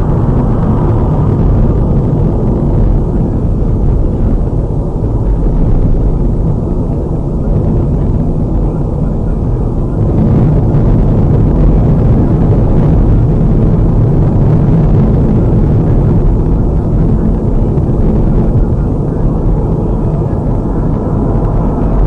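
Steady low rumble of a car driving at highway speed, heard from inside the cabin: tyre and engine noise.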